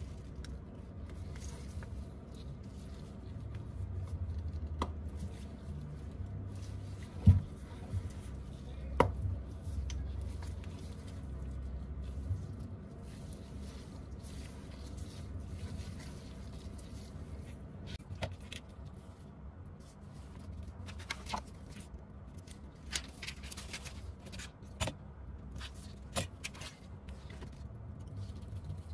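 Small clicks and taps of an iPhone 11 Pro Max's display being pressed down into its frame by hand, scattered and irregular, with one sharper knock about seven seconds in, over a low steady hum.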